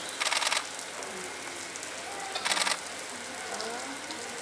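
Murmur of a crowd of onlookers talking, broken twice by a short burst of rapid rattling clicks, about half a second long, once just after the start and again midway.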